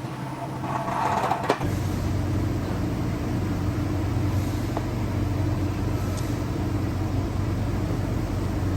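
Truck engine running steadily, coming in about a second and a half in just after a short knock.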